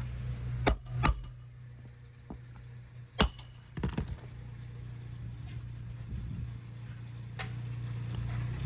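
Hammer striking a roof snake, driving roofing nails back down through an asphalt shingle: two sharp metal strikes about a second in, another a couple of seconds later, a quick run of lighter taps just after, and one more near the end. A steady low hum runs underneath.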